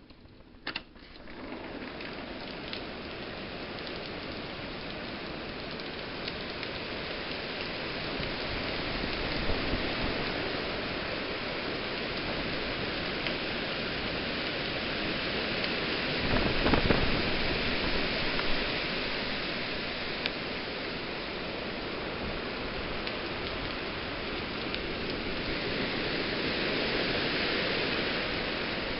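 Hurricane Irene's sustained wind and heavy rain: a steady rushing noise that comes up sharply just after a click about a second in, with gusts swelling louder around ten and around seventeen seconds in.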